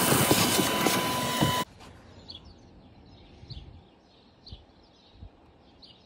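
Shop vacuum running, its hose sucking up dirt and debris with a steady whine and small rattling clicks; it stops abruptly about a second and a half in. Quiet outdoor background follows, with a few faint bird chirps.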